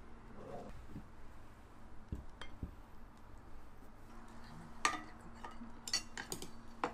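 Metal utensils clinking against a ceramic bowl of dongchimi noodles several times, in short sharp clinks with a brief ring. The loudest come about five, six and seven seconds in.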